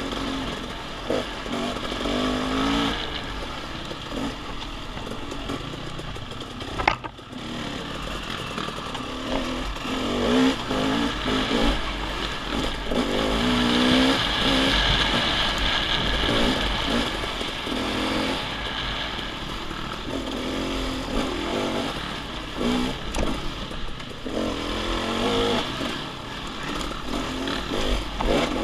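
Off-road motorcycle engine revving up and down as it is ridden along a trail, with a sharp knock about seven seconds in.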